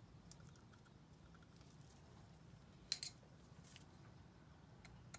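Near silence with a faint low hum and scattered small clicks of a screwdriver and metal parts being handled on an air compressor's cylinder. A sharper double click comes about three seconds in.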